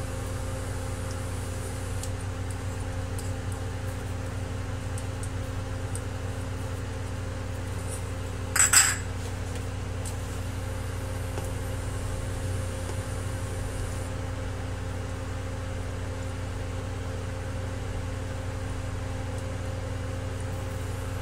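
Steady low electrical hum, with one short clink about nine seconds in, a small bowl set down on a stone countertop.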